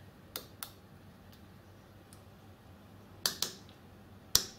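Sharp clicks from the knobs and switches on Grass polygraph amplifier panels being worked by hand: two soon after the start, two more together a little after three seconds, and the loudest just before the end.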